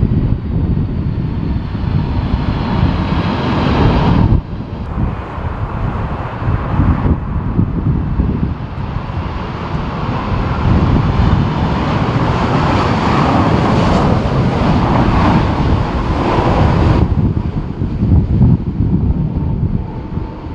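Strong gusty wind buffeting the microphone over the steady noise of jet airliner engines on approach, with a faint high whine early on. The sound changes abruptly three times, about four, seven and seventeen seconds in.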